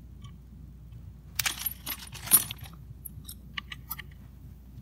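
Small metal Neutrik XLR connector parts clinking and rattling as they are handled and set down. There is a busy stretch about a second and a half in, with one sharp clink in it, then a few light clicks.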